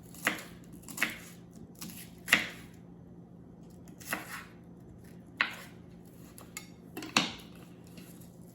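Kitchen clatter: about six sharp clinks and knocks of utensils and dishes against a pot, irregularly spaced, with short ringing tails.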